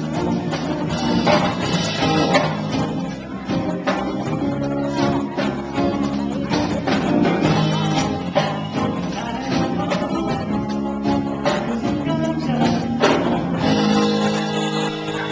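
Live song: strummed acoustic guitar playing a steady rhythm, with singing.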